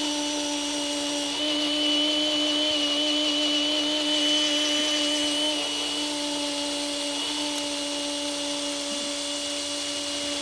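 Cordless drill motor running at a steady speed, spinning a ring on a mandrel while sandpaper on a popsicle stick rubs against it, sanding the cured resin and glue inlay in the ring's channel flush.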